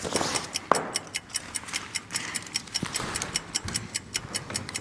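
Rapid, even clock-like ticking, a ticking sound effect, with a few separate louder clicks from the SMDV Flip softbox being snapped open.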